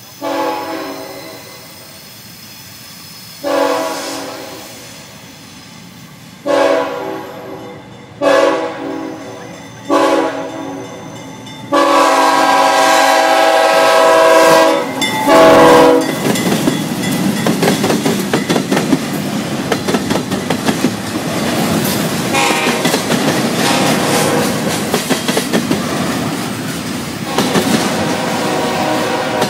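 CSX freight locomotive sounding its multi-note air horn for a grade crossing: five blasts followed by one long blast of about four seconds as it reaches the crossing. The locomotives then pass close by, and the double-stack intermodal cars roll through with a loud steady rumble and the clatter of wheels over the rails.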